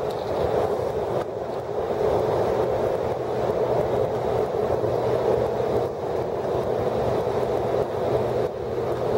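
Steady rumble of a large container ship's engine passing close by in the canal, with a train crossing the steel truss railway bridge above and wind buffeting the microphone. The level stays even throughout, with a low, steady hum under the noise.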